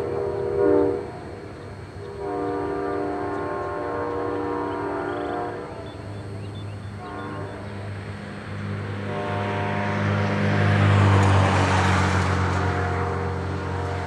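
Amtrak P42DC diesel locomotive's Nathan K5LA multi-chime horn sounding a series of blasts: a short one, a long one of about three seconds, then shorter, fainter ones. Under the horn runs a low diesel rumble that grows louder in the second half, with a rush of noise about ten seconds in.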